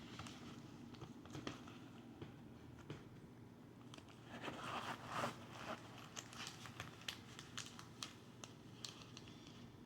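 Packaging being handled during unboxing: a crinkling rustle about four to five seconds in, followed by a run of light clicks and taps.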